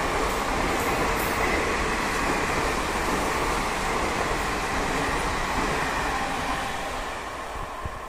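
Rake of empty ICF passenger coaches rolling past at speed: a steady rushing rumble of steel wheels on the rails. It drops off somewhat near the end.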